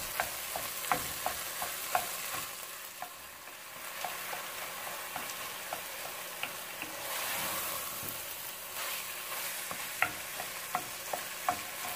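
Ground turkey and sausage meat sizzling as it browns in an enamelled pot, with a wooden spoon breaking up and stirring the meat, scraping and tapping the pot in frequent short clicks. The sizzle swells a little about seven seconds in.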